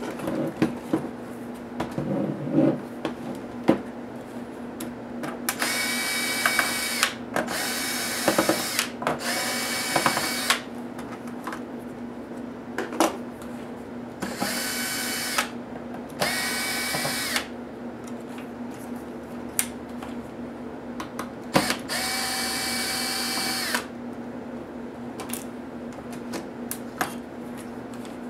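Cordless drill-driver backing screws out of a laptop's plastic bottom case in about six short runs of a second or two each. Clicks and knocks of the laptop and its parts being handled come between the runs.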